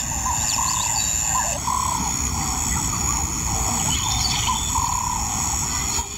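Lion cubs mewing in a run of short rising-and-falling calls, one or two a second, over a steady high insect drone.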